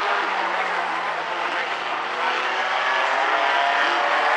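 Several small four-cylinder compact race cars running hard around a short oval, their engines overlapping and rising and falling in pitch as they power through the turns.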